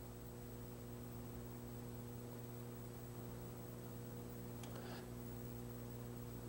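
Steady low electrical mains hum with a faint hiss on the recording, with a faint brief scratch a little before five seconds in.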